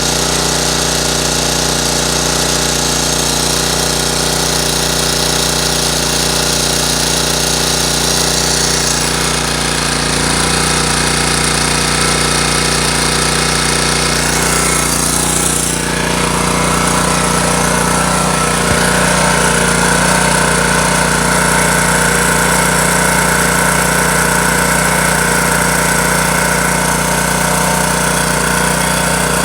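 Honda EX1000 portable generator running steadily, loaded by a window air conditioner. The tone of the running shifts about a third of the way in and again about halfway.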